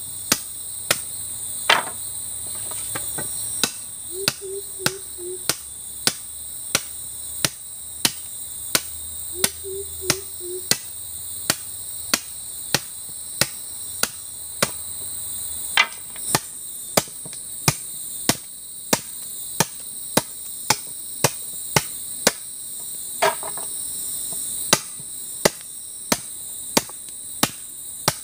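Machete blade chopping into a bamboo pole, cutting its end to a point for a stake: a steady run of sharp strokes, a little more than one a second. Insects drone steadily behind.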